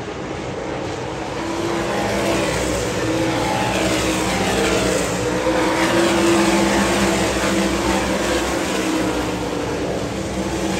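A field of 358 sprint cars racing at full throttle, their small-block V8 engines overlapping as they pass, engine pitches sweeping up and down. The sound builds to its loudest about halfway through as the pack goes by close, then eases slightly.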